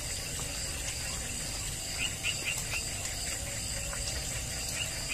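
Steady outdoor insect chorus, a high buzzing that holds level, with a short run of quick chirps about two seconds in and a couple more near the end.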